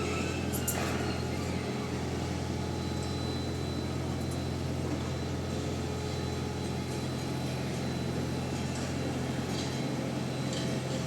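Heavy construction machinery's engine running steadily: a low, even drone with a few faint clicks.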